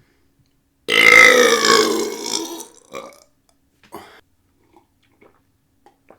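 A loud, long deliberate belch lasting nearly two seconds, starting about a second in, its pitch falling slightly as it goes. Two short, quieter sounds follow.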